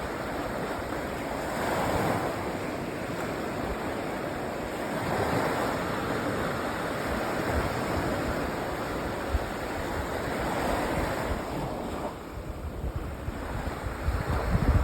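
Sea waves washing onto a sandy beach, each surge swelling and fading every few seconds. Wind buffets the microphone near the end.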